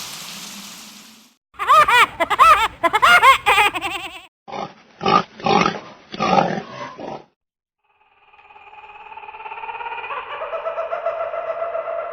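A string of separate sound effects: a wash of noise fading out, then repeated squealing calls that rise and fall in pitch, several short harsh grunts, and finally steady sustained tones swelling in.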